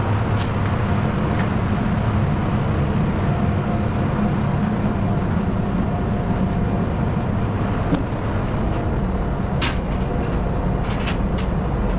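Steady machinery and ventilation drone with a constant low hum, typical of a ship's machinery spaces. A few light clicks near the end.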